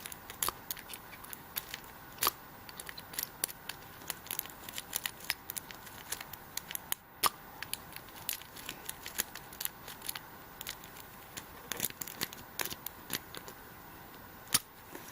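Lock pick and tension wrench working in the keyway of a Master Lock padlock: many small, irregular metal clicks and scrapes as the pins are picked.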